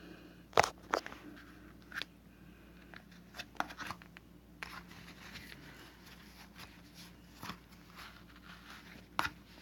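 Scattered clicks, taps and short rustles close to the microphone, the sharpest about half a second and a second in and again near the end, over a faint steady hum.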